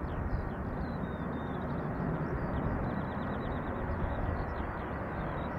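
Steady distant rumble of an Airbus A330's jet engines at take-off power during its take-off roll, with small birds chirping over it.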